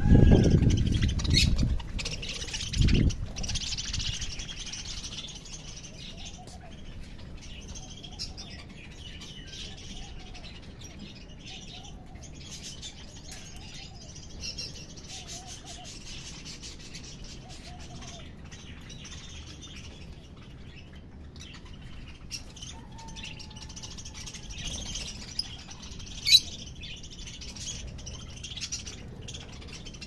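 Aviary of small parrots, lovebirds among them, chirping and twittering continuously, with short lower calls repeating through the middle. A few low thumps and rumbles come in the first three seconds, and there is one sharp click about 26 seconds in.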